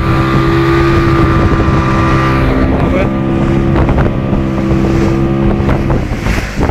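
Small open fishing boat's motor running steadily at speed, with the hull knocking through choppy waves and wind on the microphone. The motor's steady tone fades away near the end.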